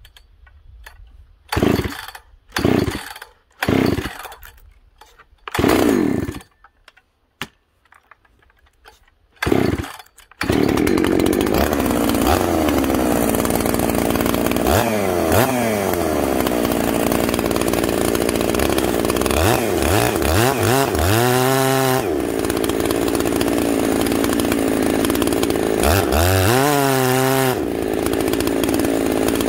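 Two-stroke chainsaw pull-started with several short pulls, catching about ten seconds in. It then runs steadily and is revved up and down a few times. Near the end it cuts into a log on a freshly hand-sharpened chain.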